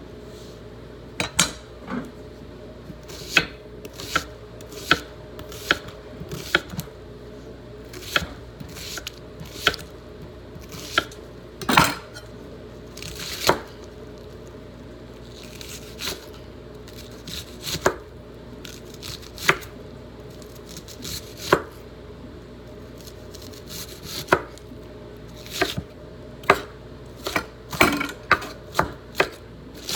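Knife chopping vegetables on a cutting board: single sharp strikes spaced irregularly a second or two apart, coming quicker near the end.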